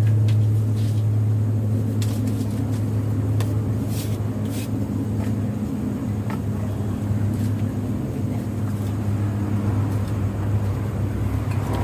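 A steady low hum with a few faint clicks or taps scattered through.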